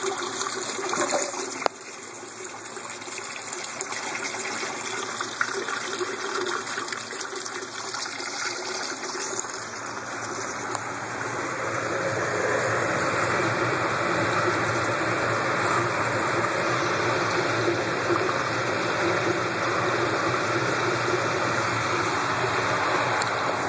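Running water pouring and splashing, a steady rush that dips sharply near the start and grows louder about halfway through.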